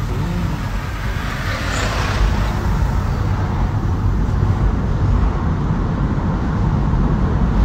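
Steady road and tyre rumble heard inside a Tesla electric car on the move, with passing traffic; an oncoming vehicle swells past about two seconds in.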